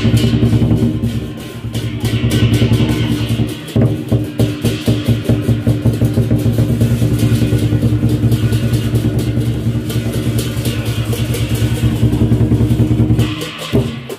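Lion dance percussion: a large Chinese drum beaten in a fast, steady rhythm with hand cymbals clashing along, dipping briefly near the end before picking up again.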